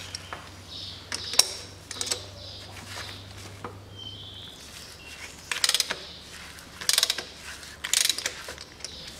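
Ratchet wrench clicking as an oil filter is being unscrewed: a few single clicks, then three short bursts of rapid ratcheting about a second apart.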